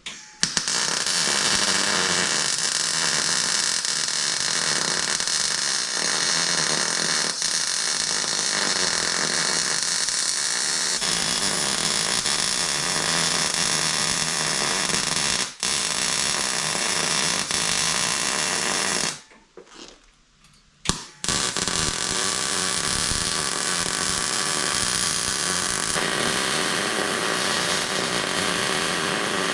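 Electric arc welding on steel: a steady crackling hiss of the arc in one long bead of about nineteen seconds, broken for an instant partway through, then a second bead struck about two seconds after it stops and run to the end.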